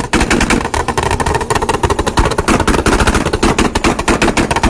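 Exhaust of a tuned BMW 335i's twin-turbo N54 engine firing a rapid string of loud pops and bangs, about eight or nine a second.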